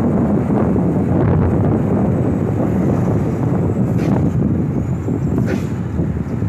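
A bus's diesel engine and exhaust running hard at road speed, heard from close behind, with wind buffeting the microphone. The sound is loud, steady and choppy, with a brief higher hiss about four seconds in and again about five and a half seconds in.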